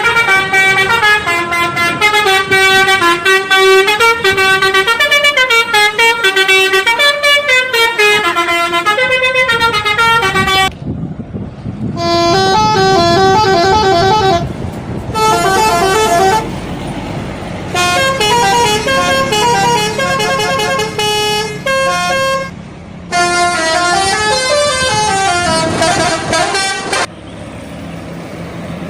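Indonesian bus telolet horns, multi-trumpet musical horns, playing fast melodic runs of stepping notes. One long run lasts about eleven seconds, then shorter runs follow with brief pauses between them, over a low rumble of engines and traffic.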